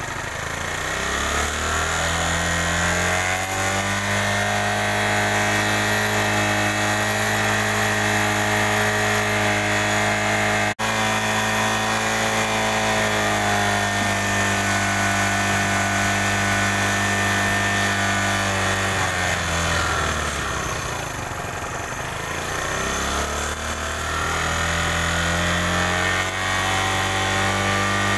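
TVS Star City 110's single-cylinder four-stroke engine running while its carburettor tuning is adjusted. The revs climb over the first few seconds and hold, sink toward idle about two-thirds of the way through, then climb again near the end.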